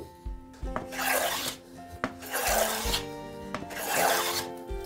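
A hand plane taking three strokes along a wooden board, each a rasping hiss of under a second, about a second and a half apart. Background music plays underneath.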